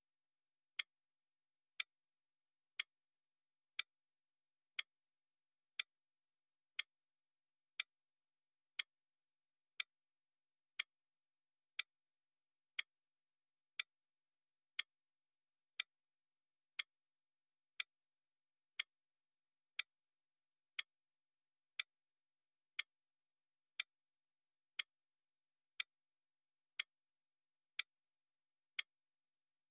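Countdown timer ticking like a clock, one short, sharp tick each second, keeping time for the exam-timer countdown.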